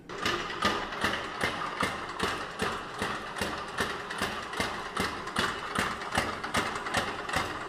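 Benchtop laboratory vibrating machine, loaded with a clay sample, starts suddenly and runs with a fast, even rhythm of knocks and rattles.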